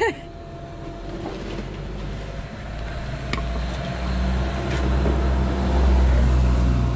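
A motor's low, steady rumble that grows louder through the second half, like a vehicle engine drawing near, with a couple of faint clicks.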